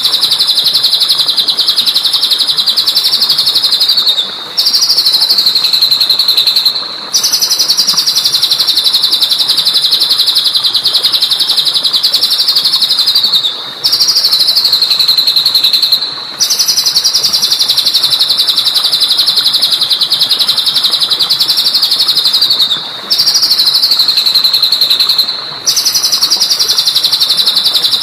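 A songbird's rapid, high-pitched trill held in long unbroken runs of several seconds, each rising slightly just before a brief break. The same sequence of runs repeats about every nine seconds, as in a looped bird-song training recording.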